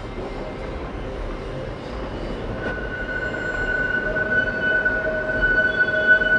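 Subway train running, heard from inside the car: a steady rattling rumble. A steady high whine joins about two and a half seconds in, and a lower tone about a second later.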